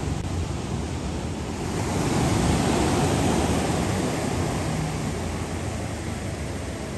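Ocean surf: a wave breaks and washes up the beach, swelling about two seconds in and slowly fading, over a low steady rumble of wind on the microphone.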